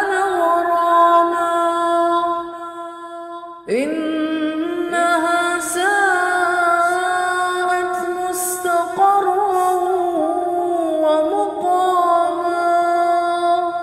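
Wordless vocal background music: layered humming voices holding a steady drone with slow, ornamented swells in pitch. It dips about two and a half seconds in and comes back in fully about a second later.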